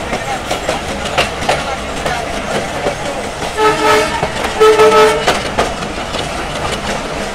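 A moving passenger train heard from aboard, its wheels clacking over rail joints, with a train horn sounding two short blasts about a second apart near the middle.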